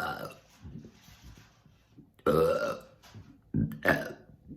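A woman burping several times, deliberately bringing up swallowed air: a short burp at the start, a longer, louder one a little past two seconds in, then two quick ones close together near the end.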